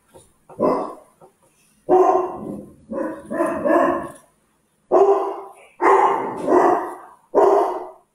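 A house dog barking over and over, a bark or two about every second.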